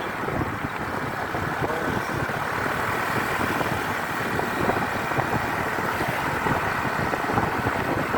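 Steady road noise of a moving motor vehicle: engine and tyres running with a dense rumble and a faint steady whine above it. No horn sounds.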